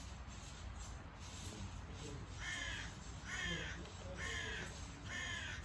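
A bird calling four times, short harsh calls evenly spaced just under a second apart, starting a little before halfway through.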